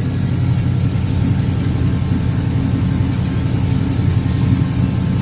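Chevy throttle-body-injected engine idling steadily and a little high with its freshly regasketed injector pod; the high idle was later traced to injector O-rings not seated all the way.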